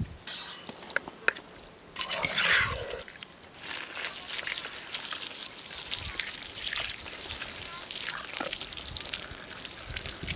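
A stream of water poured over tomatoes and eggplants held in the hands, splashing off the vegetables and spattering and dripping onto the ground, from about four seconds in. Before it come a few light clicks and a short handling sound.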